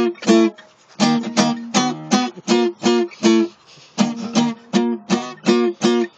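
Acoustic guitar strummed in short chord strokes, about three a second, pausing briefly about half a second in and again just before the four-second mark.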